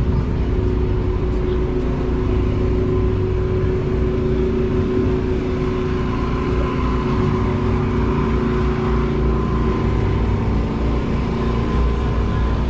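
Hot rod engine running steadily at a constant speed, with a strong low tone and no revving.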